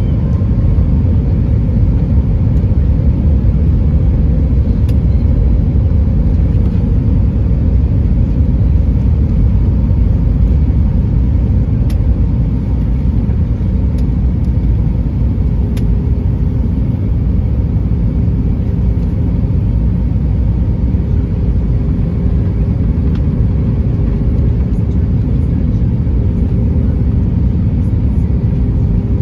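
Airbus A320 cabin noise on descent, heard from a window seat: a loud, steady low rumble of engines and airflow. A faint steady hum joins it about halfway through.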